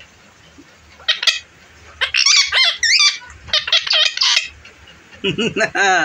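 Indian ringneck parakeet giving several bursts of shrill, high-pitched chattering calls, about a second in and again from two to four and a half seconds in. A person's voice starts near the end.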